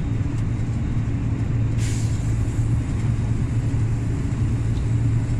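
Volvo FH460's 13-litre straight-six diesel engine running steadily under way, a low drone heard from inside the cab along with road noise. A brief hiss comes about two seconds in.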